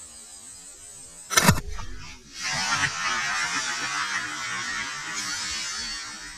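One shot from a .44 cap-and-ball revolver, a replica 1858 Remington New Model Army firing black powder, about a second and a half in, followed by a few seconds of steady hiss.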